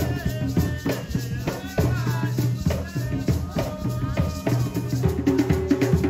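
A Garifuna drum group playing live on hand drums and a shaker in a steady, driving rhythm, with voices singing over it.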